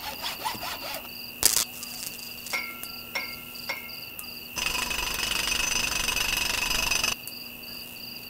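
Crickets chirping in a night ambience, an even pulsing trill over a steady high tone. A sharp click comes about a second and a half in, then three short falling tones, then a loud steady hiss for about two and a half seconds.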